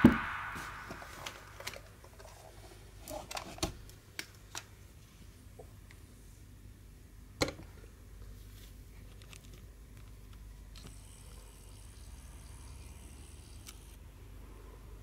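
Light handling clicks and knocks as a full-metal CO2 BB pistol is moved about and set down on a plastic kitchen scale, the loudest knock about seven seconds in; otherwise faint room tone.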